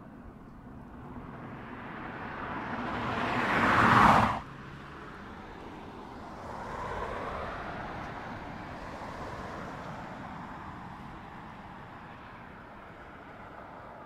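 Mazda 6 sedan driving past: engine and tyre noise swells to a loud peak about four seconds in and cuts off suddenly, then a second, quieter pass rises and slowly fades away.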